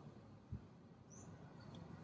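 Near-quiet room with a faint low bubbling from the simmering laksa stock, one soft knock about half a second in, and a few short, high bird chirps in the background.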